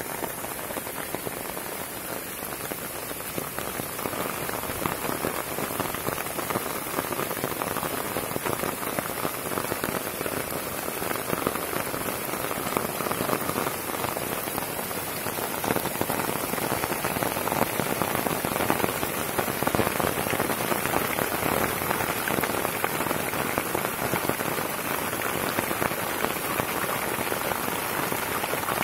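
Steady rain falling on the ground and foliage, a dense continuous patter that grows a little louder about halfway through.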